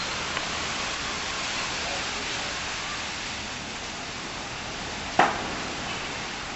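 Steady background hiss with a single sharp click about five seconds in.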